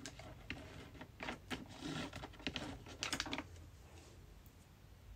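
Faint clicks and taps of makeup brushes being handled and picked through, coming in small clusters and stopping about three and a half seconds in.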